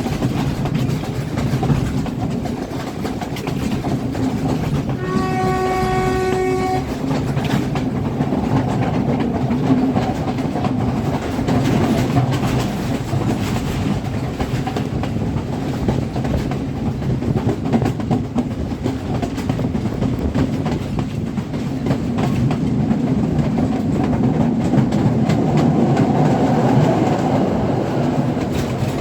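Train running along the line with a steady rumble, and about five seconds in the locomotive's horn sounds one steady note for nearly two seconds.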